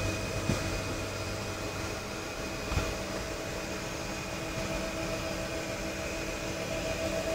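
Steady hum and whine of an airliner on the ground, with several held tones, heard from inside the aircraft; two faint knocks come about half a second and nearly three seconds in.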